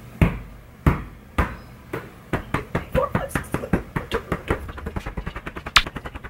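Volleyball thudding off bare forearms as it is bumped upward again and again: a few separate hits, then a quick run of many hits, several a second.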